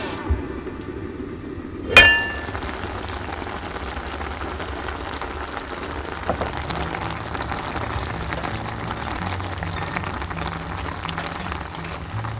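A braise bubbling and fizzing steadily in an enamelled cast-iron pot. About two seconds in, the heavy cast-iron lid gives a single loud, ringing clank.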